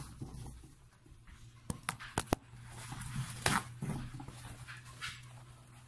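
A sprocker spaniel making short sounds close by, over a steady low hum. A cluster of sharp clicks comes around two seconds in, and a louder short sound about three and a half seconds in. Paper towel is torn off a roll as it starts.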